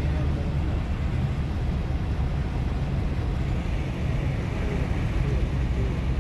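Steady low road and engine rumble heard from inside a moving car's cabin, with tyres hissing on the rain-soaked road.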